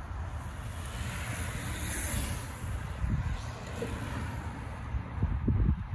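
Wind buffeting the microphone, with the hiss of a recumbent racer's tyres on asphalt swelling and fading about two seconds in. Heavier wind gusts hit the microphone near the end.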